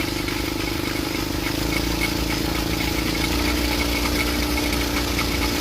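Engine of a homemade propeller aircraft running steadily, its pitch dropping slightly about halfway through.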